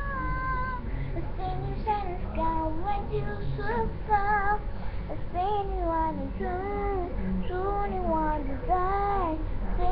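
A child singing, a string of high notes that rise and fall, with a run of arched, drawn-out notes about one a second in the second half.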